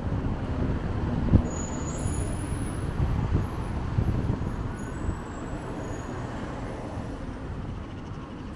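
Road traffic passing along a town street: an even, low-pitched noise of cars and a bus, with one sharp thump about one and a half seconds in.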